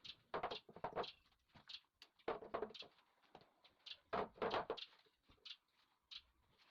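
Wooden window-frame pieces being handled and fitted together: a run of irregular short knocks and scrapes, loudest in clusters near the start, about two and a quarter seconds in, and around four seconds in.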